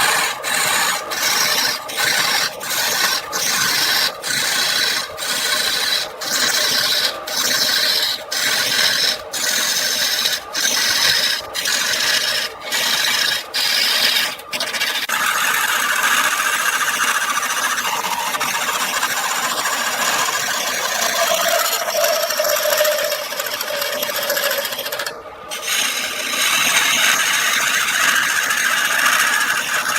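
A turning tool or abrasive scraping against wood spinning on a wood lathe, giving a rasping sound. For the first half it comes in short strokes, about two a second, then it runs on continuously with a brief squeal.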